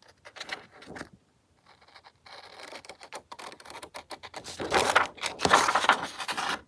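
Large scissors cutting paper: short snips and paper rustling, sparse at first, then louder and denser over the last two seconds.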